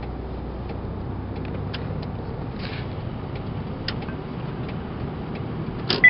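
Car cabin noise while driving: a steady low rumble of engine and road, with a few faint clicks.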